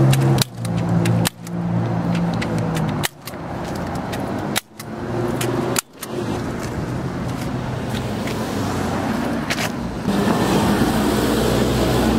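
Street traffic with a car engine running close by, a steady low hum with scattered sharp clicks; the sound cuts out abruptly several times in the first half, and the traffic noise grows louder near the end.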